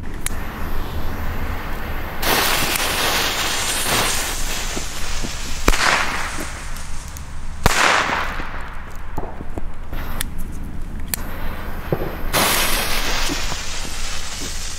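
Small Chinese firecrackers (China-Knaller) going off one at a time, each a single sharp bang, seven or eight of them spaced a second or more apart, with stretches of steady hiss lasting a couple of seconds in between.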